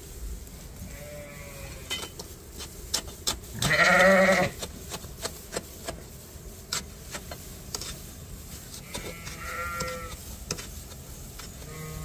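Sheep bleating: one loud, low bleat about four seconds in, lasting about a second, with fainter, higher bleats near the start and again around nine to ten seconds. Light clicks and rustles are heard between them.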